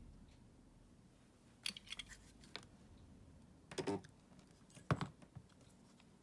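Scattered small clicks and taps of hard parts being handled, in irregular groups, with the sharpest knock about five seconds in.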